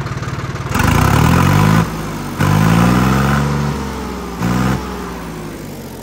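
Sonalika DI-50 tractor's diesel engine idling and revved three times, two longer revs and a short blip near the end, dropping back to idle between them. The exhaust is muted by a perforated pipe insert fitted inside the silencer.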